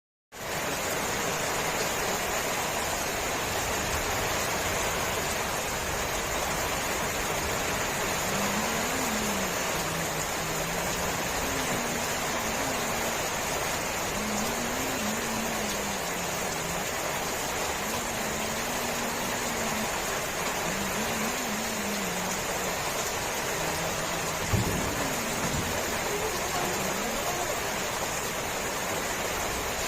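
Steady heavy rain falling, an even unbroken hiss. A faint low wavering voice comes and goes through the middle, and there is a single thump about 25 seconds in.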